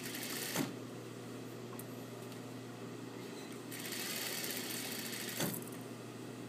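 Juki industrial sewing machine stitching in two fast runs, one stopping about half a second in and another from about four seconds to five and a half, each ending with a sharp click, its motor humming steadily in between.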